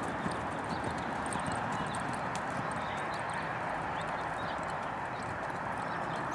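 A horse's hooves clip-clopping as it is ridden, over a steady hiss.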